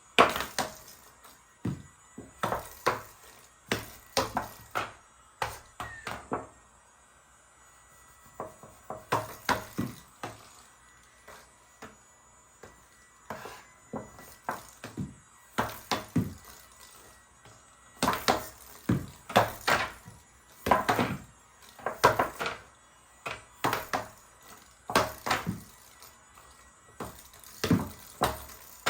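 Hard plastic clacking and knocking in quick irregular runs with short pauses: the puck and mallets of a toy LED air hockey table striking each other and the rails.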